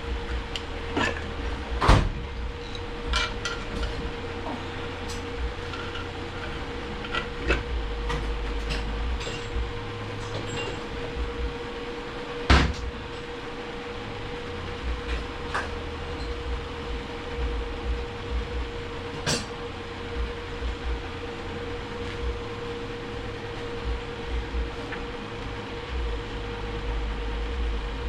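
Metal transmission parts being handled: scattered clinks and knocks, the two sharpest about two seconds and twelve and a half seconds in, over a steady hum.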